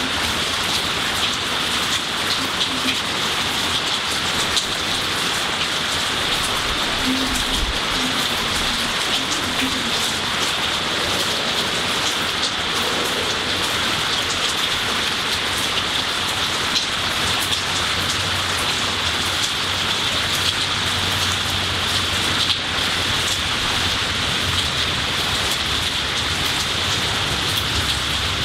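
Steady rainfall on trees, lawn and garden: an even hiss of rain with many single drops ticking close by.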